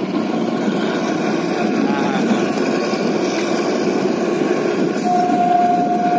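Narrow-gauge Kalka–Shimla toy train running, heard from a carriage window as a steady rumble. About five seconds in, the locomotive's horn sounds one long, steady note.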